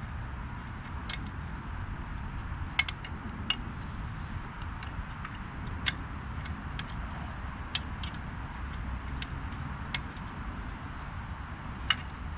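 Scattered sharp metallic clinks of hand tools and metal parts being handled, a few seconds apart, over a steady low background rumble.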